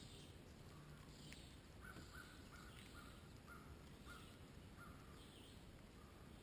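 Faint nibbling and crunching of an eastern chipmunk husking sunflower seeds. From about two seconds in, a run of about eight short, even notes at one pitch, two or three a second, calls in the background.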